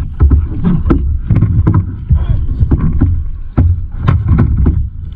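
Kayaking sounds: water sloshing around the kayaks, a steady low rumble and about a dozen sharp knocks at uneven intervals, as of paddles and bodies striking the hulls.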